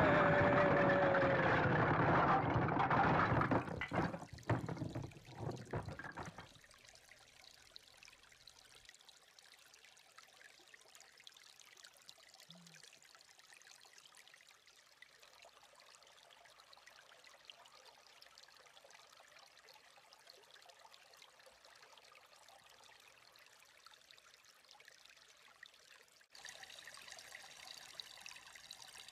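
A loud rush of noise with a falling tone over the first few seconds, ending in a few knocks. Then a small shallow woodland stream trickles faintly and steadily over stones and leaves. After a sudden cut near the end, the trickle is louder.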